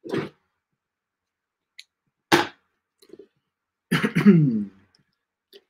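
Scissors cutting and tearing the packing tape on a cardboard box in a few short, separate bursts. About four seconds in comes the loudest sound, brief and falling in pitch.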